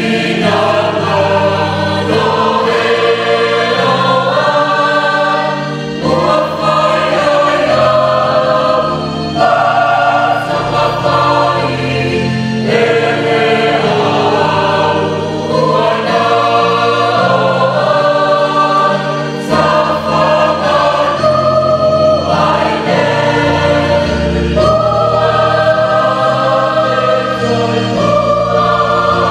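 Mixed church choir of men and women singing a hymn in several-part harmony, in sung phrases of held chords with short breaks every few seconds.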